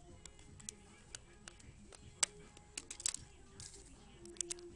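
HTC Evo 3D's plastic back cover being pried off and handled: a series of sharp plastic clicks and snaps, the loudest about two seconds in, then a quick cluster of them a second later.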